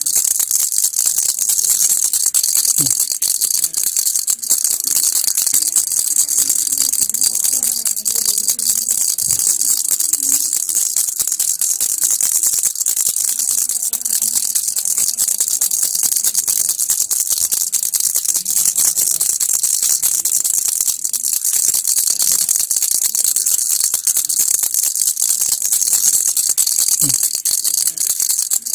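Baby rattle shaken steadily without pause, a dense, high-pitched clatter.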